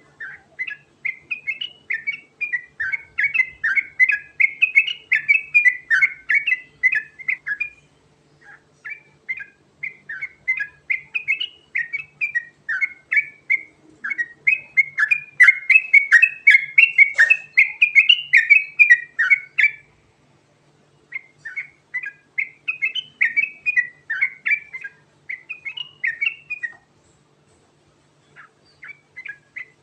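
Yellow-vented bulbul (trucukan) singing a long, fast rolling song of quick chirpy notes, in four long phrases with short pauses between them.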